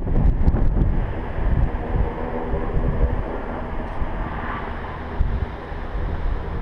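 Wind buffeting the camera's microphone: an uneven low rumble that swells and drops in gusts.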